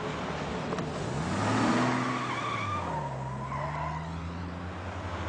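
Car engine revving as the car pulls away, with a brief tyre squeal. The engine note rises about a second in, peaks, then climbs again after a gear change around three seconds in.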